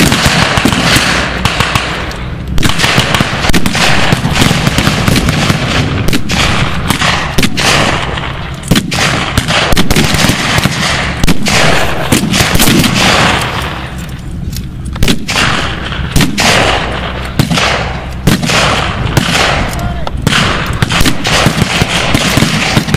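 Dense, irregular gunfire from World War II-era rifles and machine guns firing blanks in a mock battle. Single shots and bursts overlap almost without a break, easing off briefly a few times, most clearly about fourteen seconds in.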